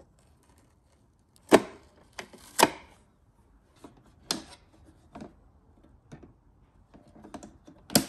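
Hard plastic clicks and knocks from handling a Nespresso Gran Lattissima coffee machine's parts, including its removable water tank being fitted against the machine. About eight irregular knocks, the loudest two about a second apart near the start.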